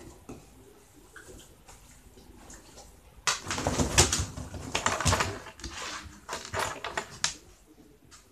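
Rustling and clicking handling noise as hands move and hold a small puppy on a cloth-covered table, in a dense run of bursts from about three seconds in until about seven seconds in.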